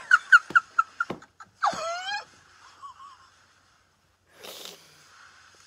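Young women laughing hard: a fast run of high-pitched 'ha-ha' bursts, then a squealing shriek about a second and a half in. A short breathy sound follows near the end.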